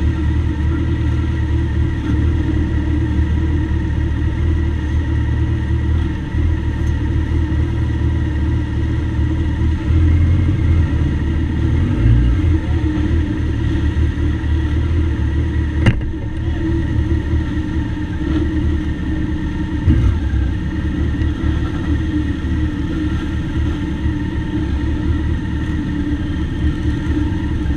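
Motorcycle engines idling together, a steady low rumble, with a sharp click about sixteen seconds in.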